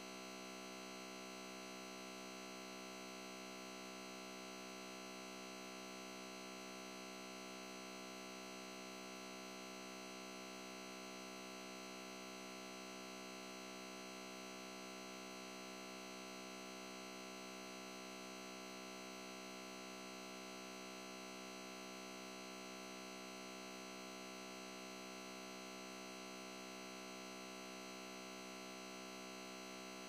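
Faint, steady electronic hum-and-hiss made of many fixed tones, unchanging, with no animal or farm sounds in it: a constant artificial signal in place of the live sound.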